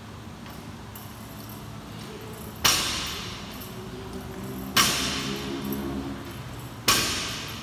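Loaded barbell with bumper plates coming down on the rubber gym floor between power-clean reps, three hits about two seconds apart. Each hit is followed by the bar and plates ringing and rattling as it dies away.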